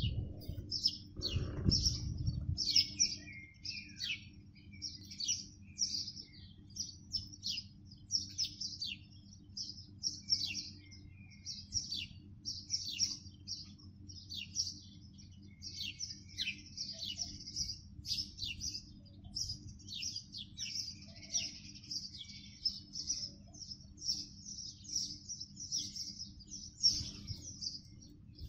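Small birds chirping over and over in quick, high, short calls, with a steady low hum underneath and a brief low rumble about two seconds in.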